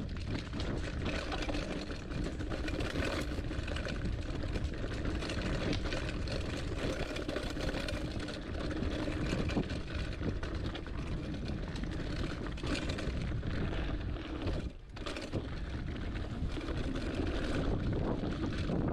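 Hardtail mountain bike rattling down a rough dirt trail at speed: continuous tyre rumble and clattering from the bike, mixed with wind buffeting the microphone. The noise briefly drops about three-quarters of the way through.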